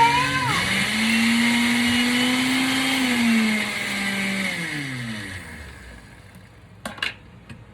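Kitchen blender running steadily, then switched off, its motor winding down in pitch and fading about four to five seconds in. Two sharp clicks come near the end.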